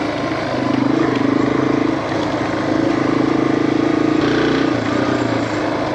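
Yamaha TW200's air-cooled single-cylinder four-stroke engine running under way, its exhaust note stepping up and down with the throttle. The exhaust baffles are worn, which the owner says is making it louder.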